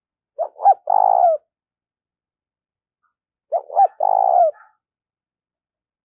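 Spotted dove cooing: two phrases about three seconds apart, each two short notes followed by a longer note that drops in pitch at the end. This is the male's advertising coo, given by a caged decoy to call in wild doves.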